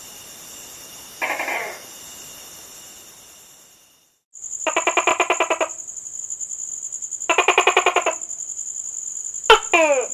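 Gecko calls: a short call about a second in, then, after a brief drop to silence, two rapid chattering trills of about a second each and a click followed by a falling chirp near the end, over a steady high-pitched background tone.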